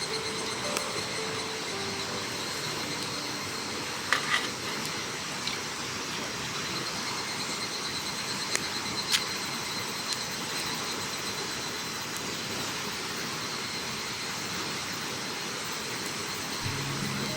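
Steady outdoor rushing noise with a faint steady high tone above it and a few light clicks.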